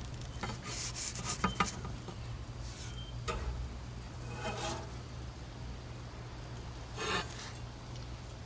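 A metal spatula scraping across a grill grate and a wooden cutting board in several short strokes as blocks of grilled cheese are lifted off and slid onto the board, over a low steady hum.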